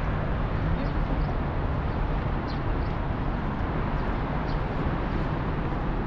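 Steady city-park background noise, with a few faint, short bird chirps high above it.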